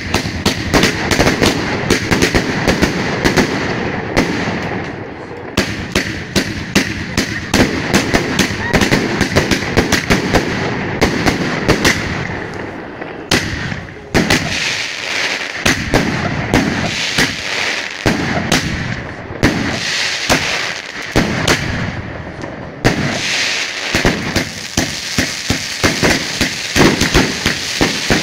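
Fireworks going off: fountains hissing while a dense, irregular run of sharp pops, bangs and crackles fires through them, easing briefly about halfway before picking up again.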